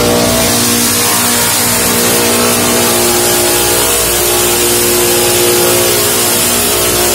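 LogRipper-200 one-pass multi-saw mill ripping a small cedar log into half-inch boards: steady, loud saw and motor noise with a droning whine as the log feeds through the blades.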